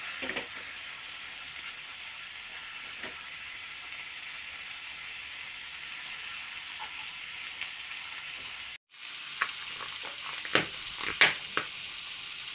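Tomato, onion and cream sabji sizzling steadily in a pan, cooked down dry without oil. After a brief dropout about nine seconds in, a spatula knocks and scrapes against the pan several times.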